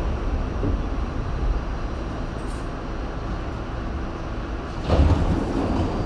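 R68 subway car running along the track, a steady low rumble of wheels on rail, with a short louder clatter about five seconds in.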